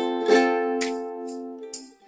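Background music: a plucked string instrument, ukulele-like, strumming a chord that rings out and fades near the end.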